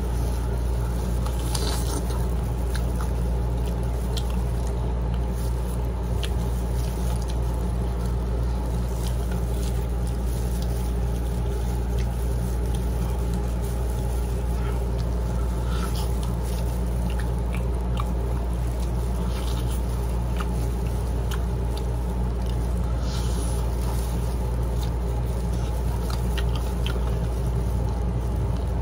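Close-up eating sounds: chewing and lip-smacking on chicken adobo wings, heard as soft scattered clicks, over a steady low hum.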